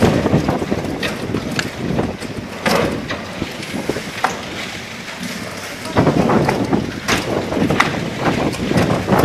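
Strong gusting wind buffeting the microphone, easing in the middle and surging again about six seconds in, with scattered short knocks and clatters from the press area's roof covering being battered by the gale.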